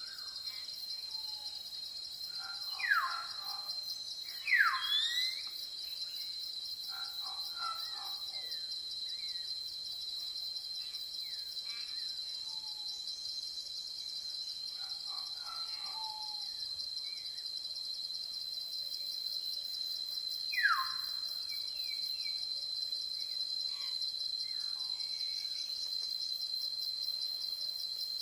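A steady, high, pulsing chorus of insects with scattered bird calls over it. Three loud downward-sliding whistles stand out, about three, five and twenty-one seconds in.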